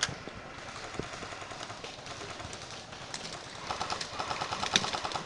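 Airsoft gun firing on full auto: a rapid, even rattle of about ten shots a second that starts a little over halfway through, after a single sharp crack at the start.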